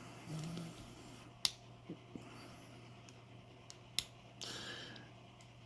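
Small metal clicks and light scraping as a clip remover works at the retaining clip on a Medeco padlock core: two sharp clicks about two and a half seconds apart, with softer ticks and brief scraping between.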